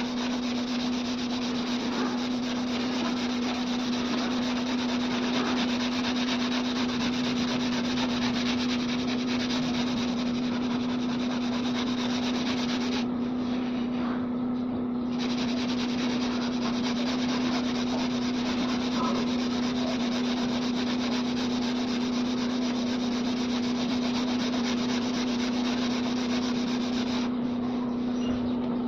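Sanding of cured body filler on a car's rear quarter panel: a steady, even sanding noise with a constant low hum beneath it.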